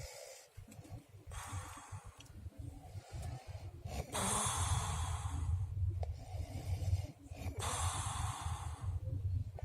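A sleeping man snoring: three slow breaths about three seconds apart, each a hissing rush of air, over a low steady snoring buzz that grows stronger from about four seconds in.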